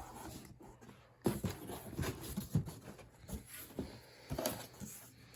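A cardboard box and its packing being opened and handled: scattered rustles, scrapes and light knocks.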